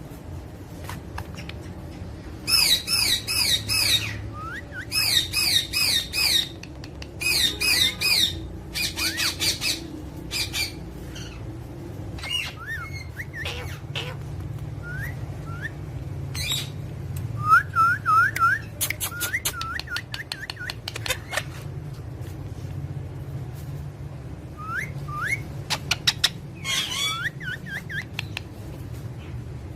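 Pet parrots calling: runs of rapid, harsh squawks in the first ten seconds, then short rising whistles scattered through the rest.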